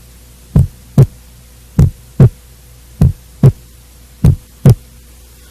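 Normal heart sounds as heard on cardiac auscultation: four regular lub-dub pairs, each the first heart sound (mitral and tricuspid valves closing) followed by the second (aortic and pulmonary valves closing), about one beat every 1.2 seconds. A faint steady hum lies underneath.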